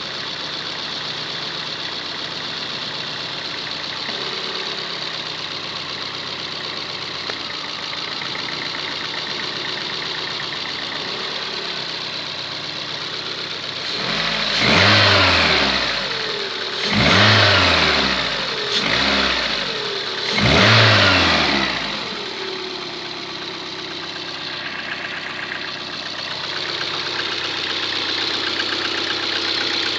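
Car engine idling, revved several times in quick succession about halfway through, each rev rising and falling back, then settling to idle again. It has a knock that the owner suspects comes from a hydraulic lash adjuster (lifter).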